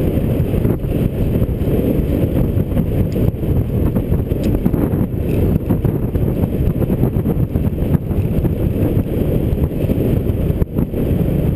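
Wind buffeting a GoPro's microphone as the bicycle coasts fast downhill: a loud, steady, gusting low rumble.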